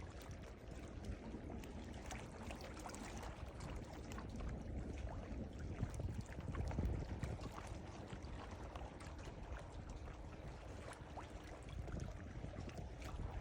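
Ocean water sloshing and splashing in a steady wash, with a low rumble underneath and many small crackling splashes; it swells a little about halfway through and again near the end.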